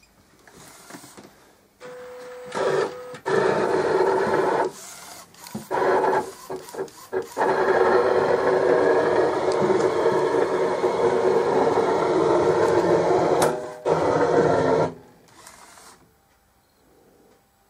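Home-built UV printer made from an Epson R1400 inkjet, running: its motors drive the mechanism in several short runs with pauses, then one long steady run that stops about 15 seconds in.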